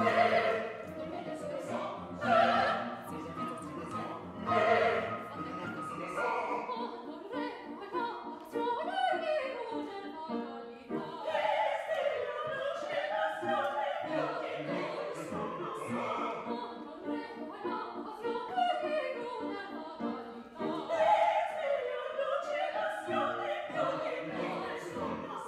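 Operatic mezzo-soprano singing with wide vibrato to grand piano accompaniment. There are three loud accented phrases in the first five seconds, then a long sustained, wavering sung line.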